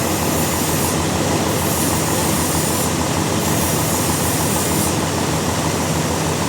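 Heavy sawmill machinery running loud and steady, with a dense mechanical noise that swells and eases slightly in its highest pitches about every two seconds.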